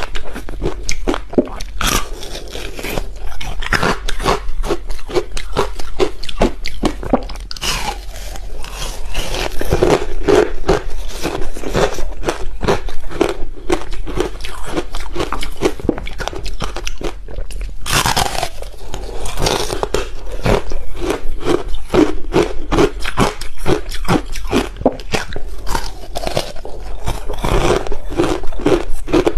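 Close-miked crunching of ice frozen with passion fruit, bitten and chewed. A dense run of crisp cracks continues throughout, with a few sharper bites standing out.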